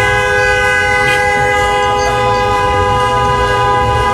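A horn held in one long, steady blast of two notes sounding together, like a dual-tone or train-style air horn.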